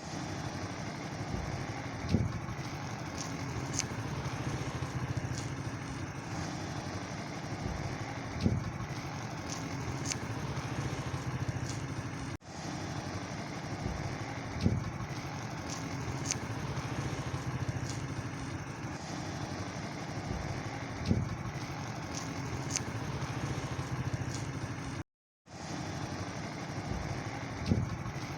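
An engine runs steadily with a low hum, and a low thud comes about every six seconds.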